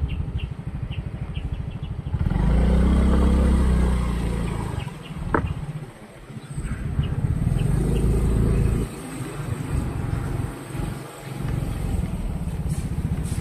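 Motorcycle engine running while being ridden. It pulls away louder about two seconds in, eases off around six seconds, then picks up again.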